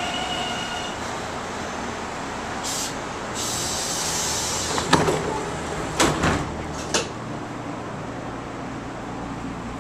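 Inside a light-rail car standing at the platform: the car hums steadily, air hisses for a couple of seconds about three seconds in, then a few knocks come between about five and seven seconds in as the sliding doors close.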